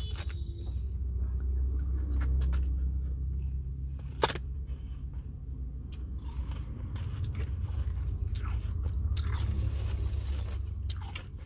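Shaved ice (gola) being bitten and chewed close to the microphone: soft crunches and scrapes over a steady low rumble, with one sharp crunch about four seconds in.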